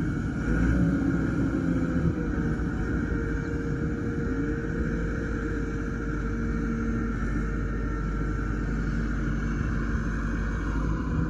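Engine of a wheel loader running as it works in the feedlot, its pitch shifting a little as the revs change, over a steady low rumble.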